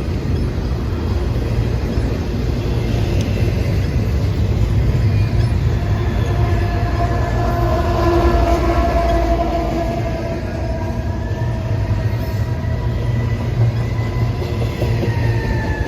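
Train I025 passing, its steady roar underlaid by a heavy low wind rumble on the microphone. From about six seconds in, steady tones ride over it and drop in pitch near the end as the train goes by.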